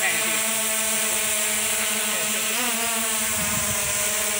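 Small folding quadcopter drone's propellers whirring steadily in a buzz of several tones as it hovers close by and then lifts away.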